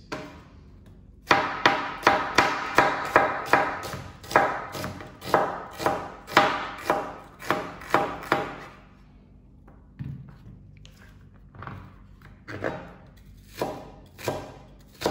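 Chef's knife chopping an onion on a plastic cutting board: a quick, even run of cuts, about three a second, for several seconds, then slower, scattered cuts near the end.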